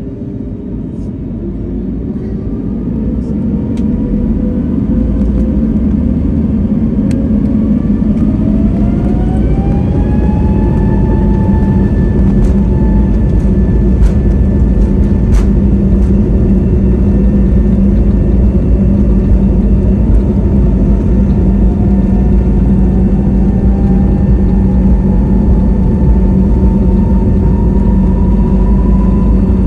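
Pratt & Whitney PW1100G geared turbofan engines of an Airbus A321neo spooling up to takeoff thrust, heard from inside the cabin: a whine rising in pitch over a heavy rumble as the aircraft accelerates down the runway. The sound grows louder over the first few seconds and then holds.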